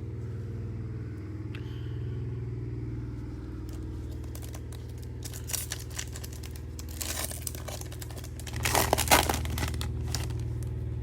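Foil wrapper of a trading card pack being crinkled and torn open, with the crackling loudest a little before the end, over a steady low hum.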